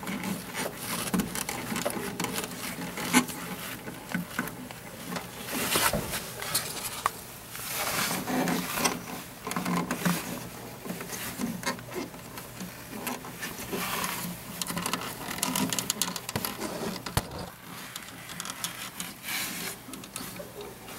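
Bundled control-panel wires and crimp terminals being grabbed and wiggled by hand to feel for a loose connection: irregular rustling with light clicks and rattles.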